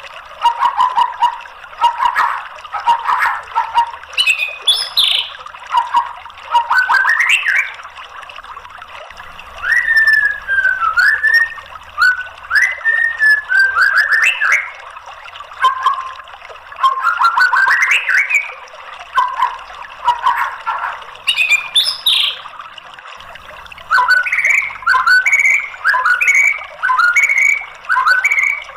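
White-rumped shama (murai batu) singing: a series of loud whistled phrases with rising and falling glides, separated by short pauses. Near the end comes a run of short rising notes repeated about twice a second.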